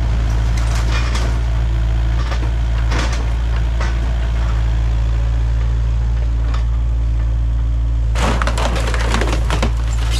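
Kubota KX057-5 mini excavator's diesel engine running steadily with a low hum. About eight seconds in, its bucket and thumb bite into the minibus body with dense crunching and cracking of torn metal and wood.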